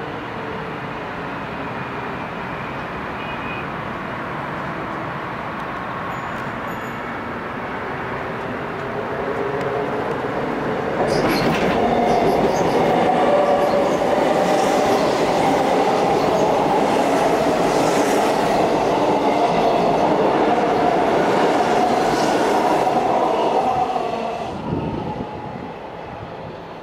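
Seoul Subway Line 2 electric train passing close by on a railway bridge: a steady rumble of wheels on rail that swells about ten seconds in and stays loud, with a steady hum in it, for about twelve seconds, then fades near the end.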